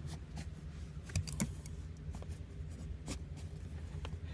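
Faint scattered clicks and scrapes of a thin tool tucking a windshield soak rope down behind the dashboard's black trim, over a steady low hum.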